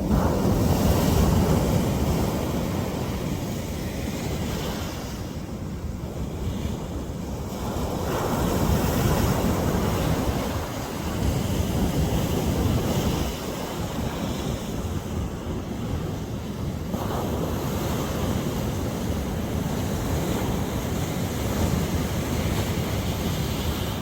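Ocean surf: waves breaking and washing in, a steady rush that swells with each incoming wave every few seconds.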